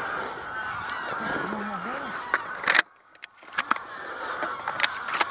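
A flock of greylag geese honking overhead, many calls overlapping. A sharp shotgun shot cuts in a little past halfway, and a second shot comes near the end.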